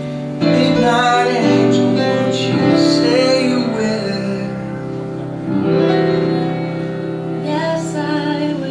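Live stage song: voices singing long, wavering held notes over guitar accompaniment.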